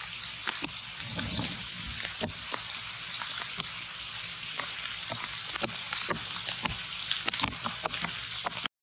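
Outdoor forest background: a steady high hiss with frequent irregular crackling ticks, and a brief low murmur about a second in.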